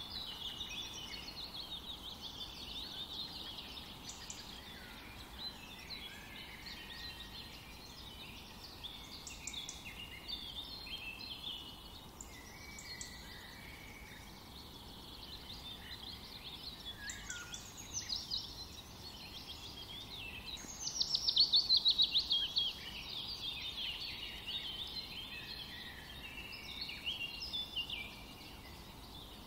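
Several birds singing and chirping in overlapping phrases over a faint hiss, with a loud, rapid trill about two-thirds of the way through.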